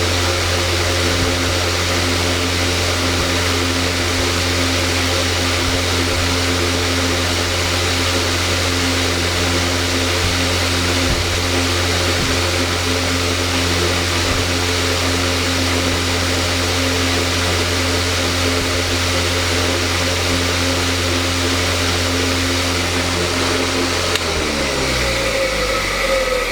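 Electric stand fan running steadily: an even motor hum under the whoosh of moving air. About 24 seconds in, the hum slides down in pitch as the motor slows, and a higher steady whine comes in near the end.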